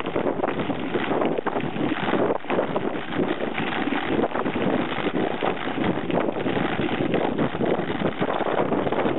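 Wind noise on a bike-mounted camera's microphone while a mountain bike rides a dirt track, with a constant run of rattles and knocks as the bike and camera mount jolt over the bumpy ground.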